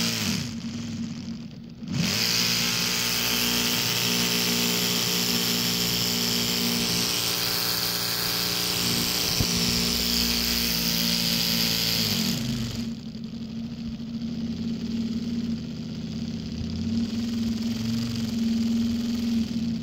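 Motorised Lego V6 engine model running with a steady whir. It winds down about half a second in and spins back up about two seconds in, then slows with a falling pitch around twelve seconds in and runs slower and quieter after that.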